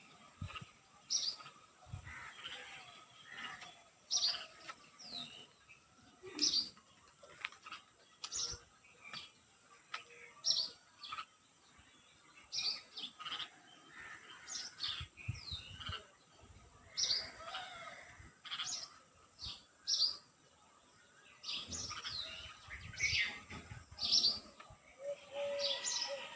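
Several songbirds chirping and singing in morning birdsong: short, high, down-sweeping notes repeated every second or so, with a few lower warbling phrases mixed in and overlapping.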